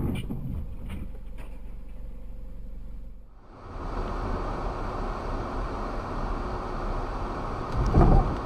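Dashcam audio of steady road and engine noise heard from inside a car, with a few sharp knocks in the first second. About 8 seconds in comes one loud thud as a cyclist hits the front of the car.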